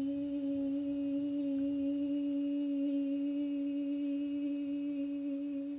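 A woman's voice singing one long 'ee' vowel on a single held note, steady in pitch and loudness, as a relaxed vocal warm-up exercise.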